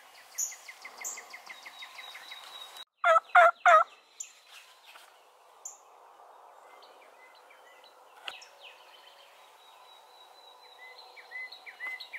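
Wild turkey gobbler gobbling once, loud, about three seconds in, with songbirds chirping around it.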